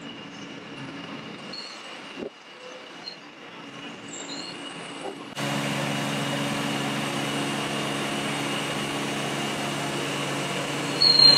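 Large engine of the lifting equipment running steadily, faint at first and then suddenly louder and close about five seconds in. A loud, high-pitched squeal starts near the end.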